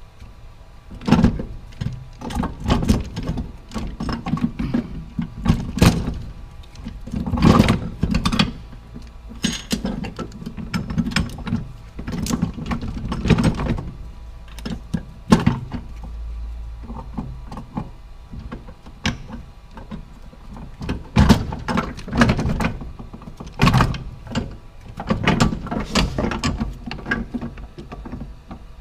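Steel transmission gears and shafts clinking and knocking against each other and the case as they are worked into place by hand: irregular sharp metal clicks and thunks with handling rustle in between.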